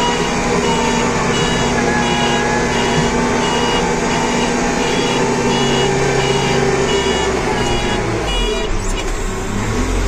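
Backhoe loader's diesel engine running steadily, heard from inside its cab, with a high warning beeper sounding about twice a second.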